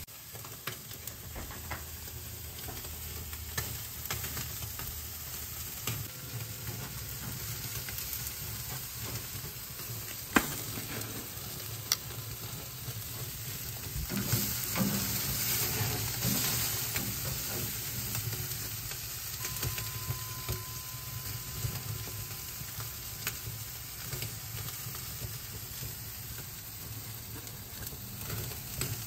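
Marinated Korean-style beef short ribs sizzling on a charcoal grill grate, a steady crackling hiss, with a few sharp clicks of metal tongs on the grate as the ribs are lifted off.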